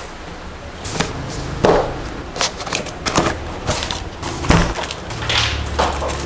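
Unboxing handling sounds: a keyboard box and its packaging being handled, giving a string of separate knocks and rustles, about one a second or a little faster.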